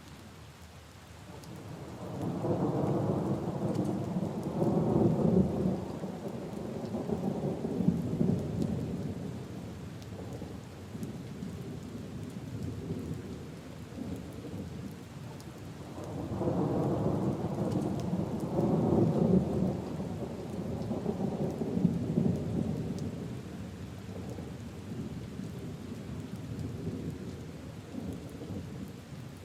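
Steady rain falling on puddles and leaves, with two long rolls of thunder. The first begins about two seconds in, the second about halfway through, and each rumbles low for several seconds before slowly fading.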